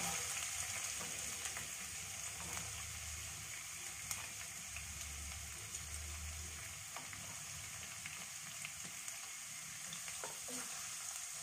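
Chopped garlic and onion sizzling steadily in hot oil in a pan, as handfuls of chopped onion are dropped in and then stirred with a wooden spatula near the end, with a few faint light taps.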